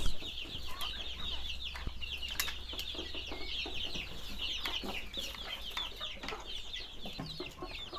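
A brood of baby chicks peeping: a steady stream of many short, high, overlapping peeps, with a few knocks and handling bumps.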